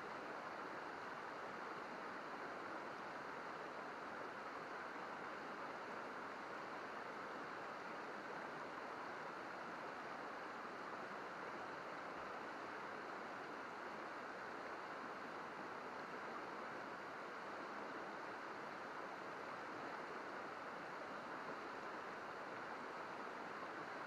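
Shallow, rocky river babbling steadily as it flows over stones, an even, unbroken rush of water.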